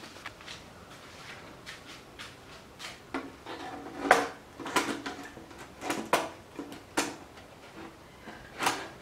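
Hard plastic motorcycle side cover being handled and pressed into place by hand: faint clicks, then a run of sharp clacks and knocks from about three seconds in, the loudest about four seconds in.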